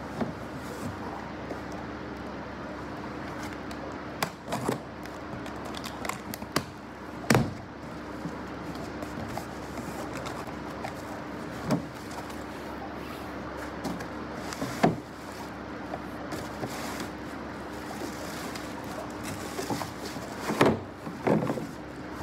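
A large corrugated cardboard shipping box being handled and opened: scattered knocks, scrapes and thumps of the cardboard being turned, its flaps pulled back and the contents shifted, with a busier cluster of handling near the end, over a steady background hiss and low hum.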